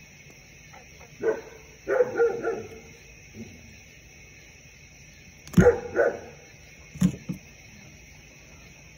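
A dog barking in short bouts: a bark just after a second in, a quick run of barks around two seconds, two louder ones near six seconds and two shorter ones around seven seconds.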